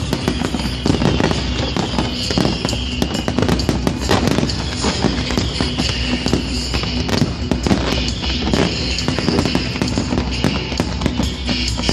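A fireworks display: a dense run of bangs and crackling bursts in quick succession, with music playing along with the show.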